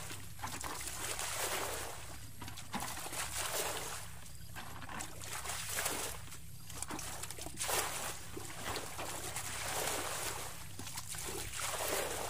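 Water sloshing and splashing in repeated swells, about one every two seconds.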